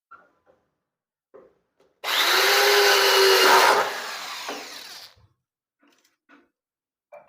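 Power drill running for about three seconds while screwing a gas-strut fitting into a wooden loft door. It is loud for the first second and a half, then lower until it stops. A few light knocks come before it.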